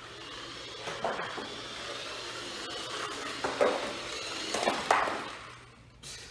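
Small electric motor of a toy RC car whining, its pitch creeping up, with several sharp knocks and clatters as the car bumps into track pieces; the sound fades near the end.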